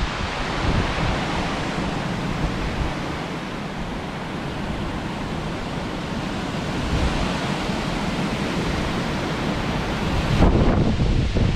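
Strong wind blowing and buffeting the microphone in a steady rush with low rumbling gusts, growing stronger about ten seconds in.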